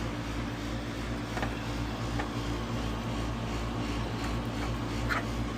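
Air-conditioning condensing unit running with a steady electrical hum and low drone, with a few faint ticks.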